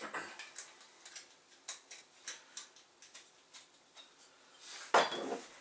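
Faint, short ticks and taps, about three a second, from hands working at a metal mixing bowl of marinating chicken, then a louder clatter near the end.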